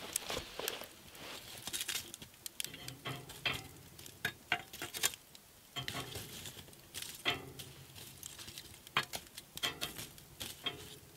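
Burning wood embers crackling: irregular sharp pops and ticks over a soft hiss. The embers come from fir, Douglas fir and spruce scraps burnt down into charcoal.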